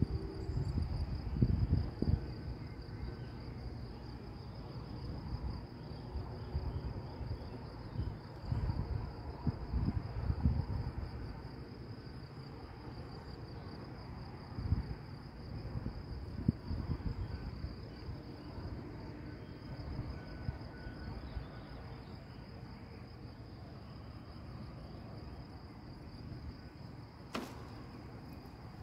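Insects chirring steadily at a high pitch, with gusts of wind buffeting the microphone, heaviest in the first ten seconds or so. A single sharp click comes near the end.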